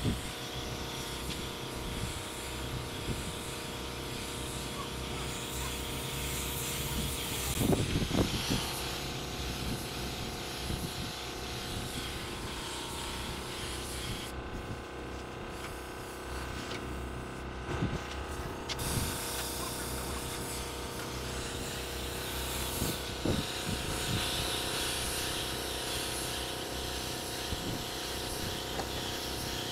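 Air spray gun hissing as it sprays paint, over a steady machine hum; the spray stops for a few seconds around the middle, then resumes.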